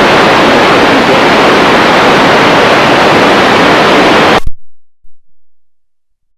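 Loud, steady hiss of radio static that cuts off abruptly about four and a half seconds in, leaving silence.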